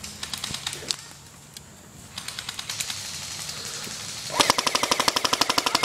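Airsoft guns firing: a few short, faint bursts at first, then from about four seconds in a loud burst of full-auto fire at roughly ten shots a second.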